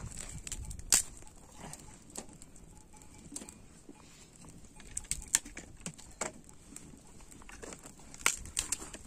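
Irregular sharp clicks and snaps, with louder cracks about a second in, around five seconds and near the end.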